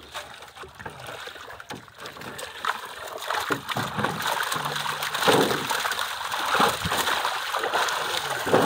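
Pond water splashing and sloshing as fish trapped in a drag net thrash and a bamboo basket of fish is scooped out and lifted, water pouring out of it. Quieter for the first two or three seconds, then the splashing grows louder and busier.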